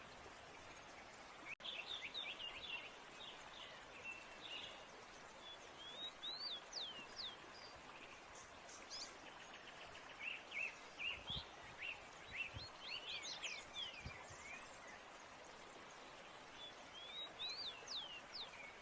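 Small birds chirping, with quick rising and falling notes in several bursts, over a steady background hiss. A sharp click sounds about one and a half seconds in.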